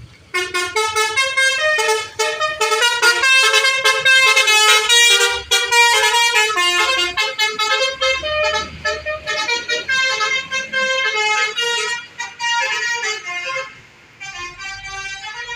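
Bus telolet horn playing a rapid tune of many short notes, loud, starting just after the start. It breaks off briefly twice in the last few seconds and carries on more softly.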